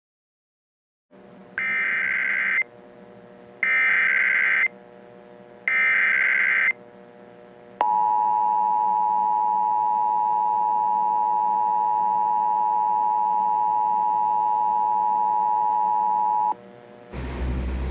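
Emergency Alert System tones: three one-second SAME data header bursts, a second apart, then the two-tone EAS attention signal (853 and 960 Hz) held steady for about eight and a half seconds, over a faint steady hum.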